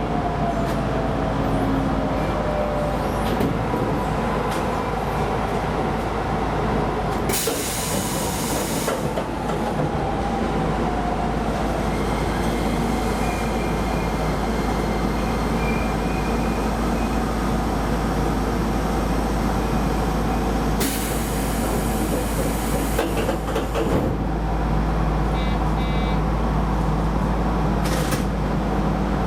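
Keisei Line rapid electric train running, heard from on board: a steady rumble of wheels on rail with a faint motor whine. Twice, at about 7 seconds and about 21 seconds in, a loud rushing noise lasts about two seconds.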